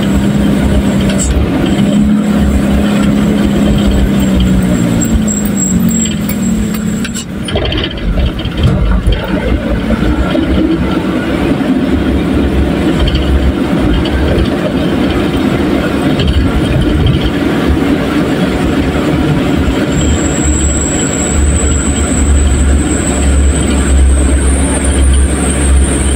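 Truck engine running under way, heard from inside the cab on a rough dirt road, with a steady low rumble. Its note sinks about five to seven seconds in, and a rougher, jolting stretch follows around seven to nine seconds in.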